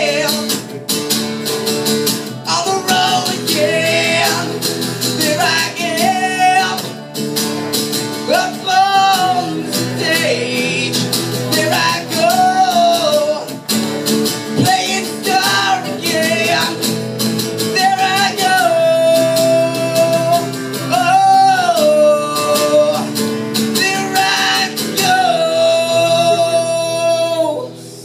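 Live acoustic performance: two acoustic guitars strummed under a man's singing voice, with several long held notes in the second half. The music stops abruptly just before the end.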